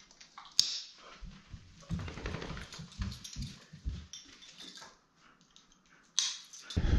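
Dogs moving about, with a sharp click about half a second in, scattered thumps and clicks, and a loud rustling burst near the end.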